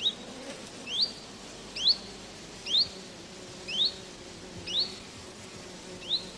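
A bird repeating a short, rising, whistled call about once a second, seven times in all.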